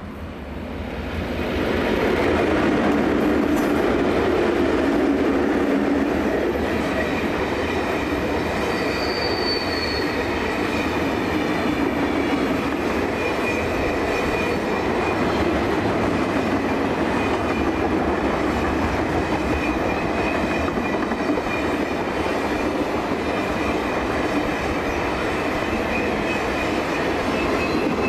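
Oil train of rail tank wagons passing close on a curve behind a 422 class diesel locomotive: the sound swells over the first couple of seconds as the locomotive goes by, then settles into a steady rumble of wagon wheels on the rails. Thin wheel squeal from the curve runs through it, with a brief higher squeal about nine seconds in.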